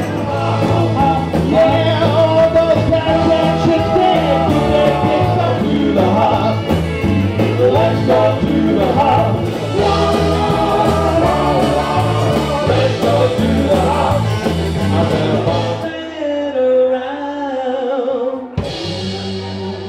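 Rock band playing with a lead singer, drums and guitar over a steady low beat. About three-quarters of the way through, the full band drops out and a thinner passage follows, cut off abruptly shortly before the end by a new section of music.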